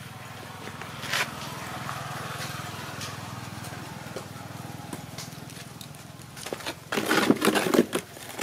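Steady low hum throughout, with a single click about a second in and a loud burst of clattering knocks near the end as the macaque shifts about in its wire cage.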